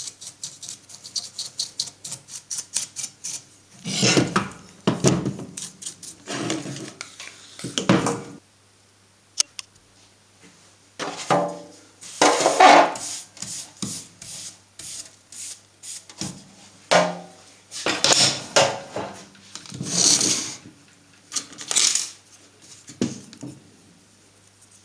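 Hand brush sweeping grinding dust off a steel workbench and the grinder body. Quick short strokes at first, about five a second, then slower, longer sweeps with pauses between.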